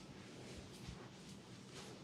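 Faint soft rubbing and brushing strokes of hands over hair and skin during a head massage, several uneven swishes, over a faint steady low hum.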